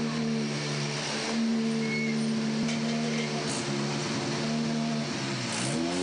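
Rally car engine idling steadily. Near the end the revs dip briefly and pick back up.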